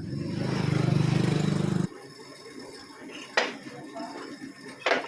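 A machine in the workshop runs with a steady low hum for about two seconds and stops abruptly, while a truck water pump impeller is being pressed onto its shaft; two sharp metal clinks follow, about a second and a half apart.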